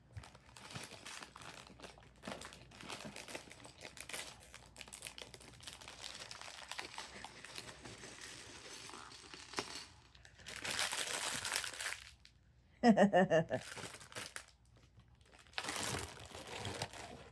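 Plastic parts bag of a brick-built flower set crinkling and rustling as it is handled and opened, with louder stretches of rustling about ten seconds in and near the end. A brief voice-like sound about thirteen seconds in.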